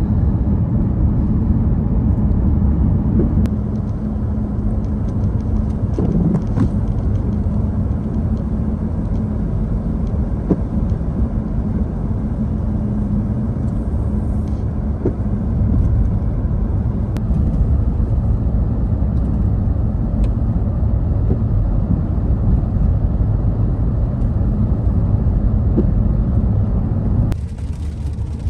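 Steady low road and engine rumble inside a moving car's cabin. The higher hiss above the rumble drops away abruptly shortly before the end.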